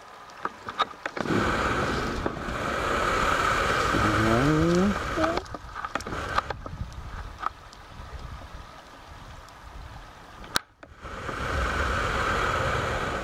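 Outdoor wind buffeting the camera microphone over the rush of a flowing river, in two gusty spells: one from about a second in to about five seconds, one starting near the end. A short rising vocal sound about four seconds in, and a few light clicks.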